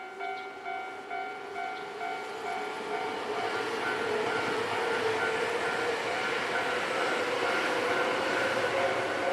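Japanese level-crossing warning bell clanging rapidly and evenly. From about three seconds in, a Nankai electric train passes over the crossing, its wheel and running noise building up under the bell together with a rising whine.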